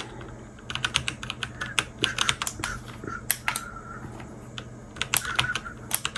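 Magegee 60% mechanical keyboard being typed on: irregular bursts of rapid key clicks with short pauses between them, the first burst starting less than a second in.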